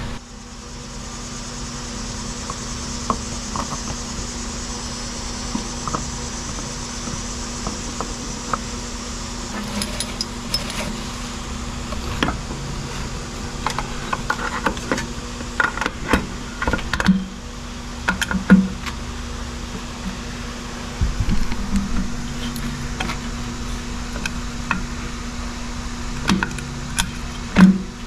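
Light clicks and metal knocks as a distributor is handled and worked down into a Pontiac 350 V8 block, scattered at first and more frequent after about ten seconds, with one duller thump. A steady background hum runs underneath.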